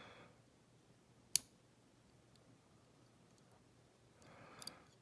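A lock pick working the pins of an Abus Buffo euro cylinder during single-pin picking: one sharp click about a second and a half in, then a few faint ticks.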